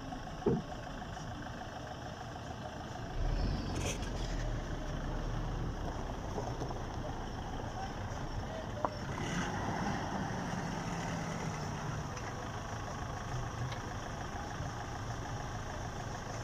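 Off-road 4x4 vehicles driving slowly along a rocky gravel track, their engines running steadily. There is a short thump just after the start and a deep rumble about three seconds in.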